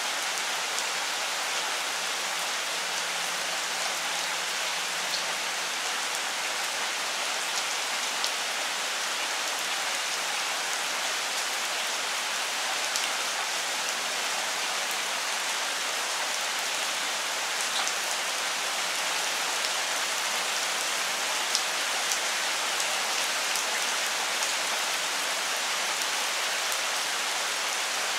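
Steady rain falling on the leaves of a fruiting longan tree: an even hiss with scattered sharper drop ticks.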